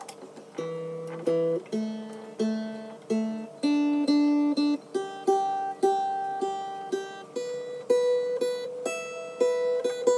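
Steel-string dreadnought acoustic guitar being tuned by ear: single strings plucked one at a time, over and over, about one or two a second, while a tuning peg is turned, with one note left ringing underneath.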